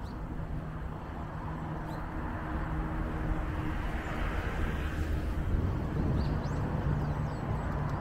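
Street traffic ambience: a steady rumble of vehicles, with one passing by and swelling about halfway through. A few short high chirps sound over it.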